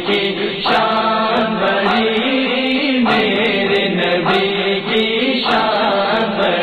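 Male voices chanting a repeating vocal backing line in short phrases, the vocal interlude of an Urdu naat.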